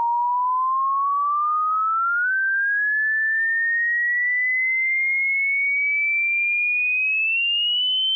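Hearing-test frequency sweep: a single pure sine tone gliding slowly and steadily upward in pitch at an even loudness, with a small step up a little over two seconds in.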